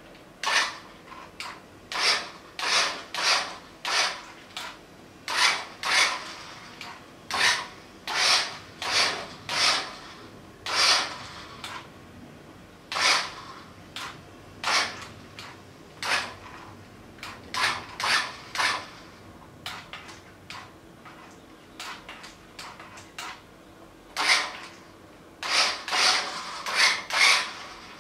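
Repeated rasping scrapes, each lasting under half a second, coming in irregular runs with short pauses between them.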